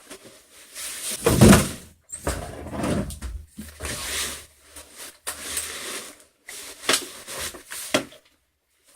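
Scraping, rustling and knocking of stored things being pulled out and handled, in a string of irregular scrapes and knocks. The loudest comes about a second and a half in.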